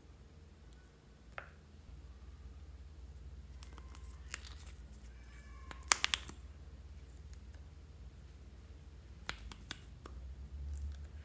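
Plastic lipstick caps and tubes being handled and pulled apart: a few sharp clicks, the loudest a quick cluster of clicks about six seconds in.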